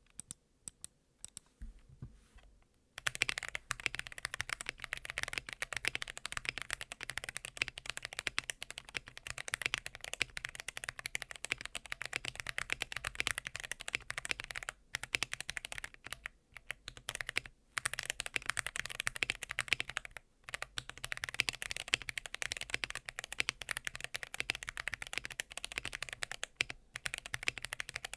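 Custom KBD67 Lite mechanical keyboard with Holy Panda tactile switches, lightly lubed with Krytox 205g0, on a polycarbonate plate, typed on fast and continuously. A few scattered keystrokes come first; steady typing starts about three seconds in and breaks off briefly a few times.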